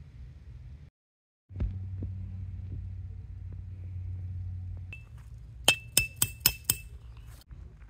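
Peg hammer driving a tent peg into gravel: about six quick metallic clinks near the end, each blow with a short ring.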